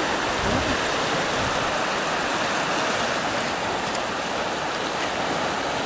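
River water rushing steadily near a waterfall, an even, unbroken wash of noise.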